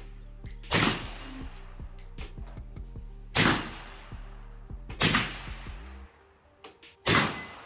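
Four single rifle shots from a 24-inch-barrel AR-15 in 5.56, each sharp crack with a short ringing tail. They come at uneven gaps of about two seconds over background music, which drops out about six seconds in.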